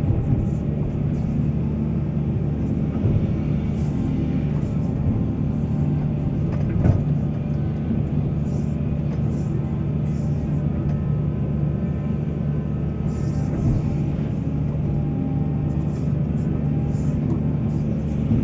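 Heavy diesel mining machinery running steadily under load, a deep engine drone with one brief knock about seven seconds in.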